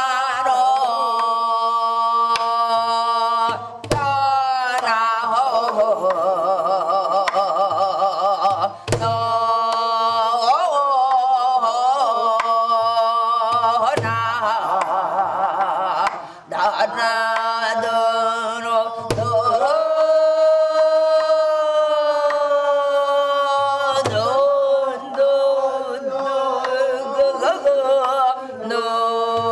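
Korean traditional singing in long held notes with a wide, shaking vibrato. It is accompanied by a drum whose deep strokes fall about every five seconds.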